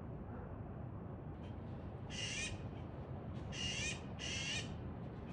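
Magpie giving three harsh calls, each about half a second long, the last two close together, over a steady low background rumble.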